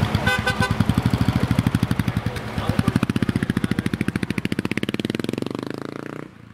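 Motorcycle engine pulling away, its exhaust a rapid, even pulsing beat that fades as the bike moves off.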